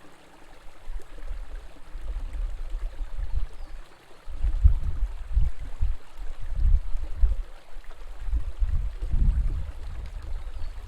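River water flowing steadily, with an irregular low rumbling underneath that is heaviest from about four seconds in.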